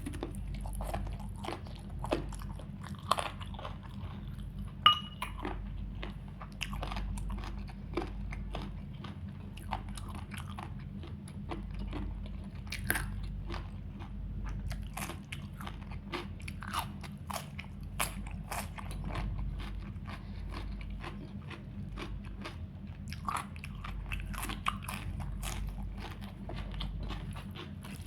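A person chewing and biting food close to the microphone, with frequent irregular crunches, over a steady low hum. One sharp click about five seconds in is the loudest sound.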